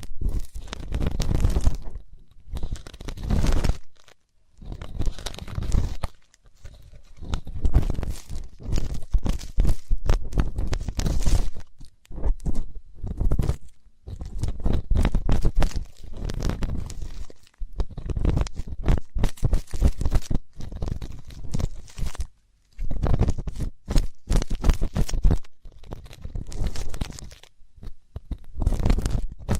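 ASMR ear-cleaning sounds close on the microphone: scraping and rubbing in the ear, heard as crunchy crackling strokes with a deep rumble, in irregular bursts of one to two seconds with short pauses between.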